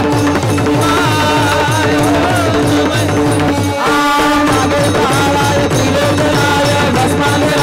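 Devotional kirtan music: a steady held drone with a gliding melody line above it over a regular hand-drum beat, with a brief drop about four seconds in.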